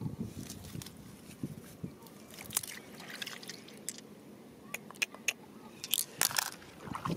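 Hands handling glass stones and wet mud: scattered small clicks and wet squelches, busier about two and a half seconds in and again near the end.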